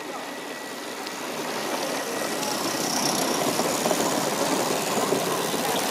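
Gauge 1 live steam model locomotive running, a busy mechanical sound that grows louder over the first two or three seconds and then holds steady.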